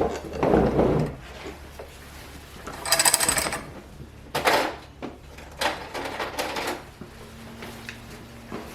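A handful of short clattering and rustling handling noises from grooming tools and the dog on the table, one of them a brief hiss about three seconds in. A faint steady hum comes in near the end.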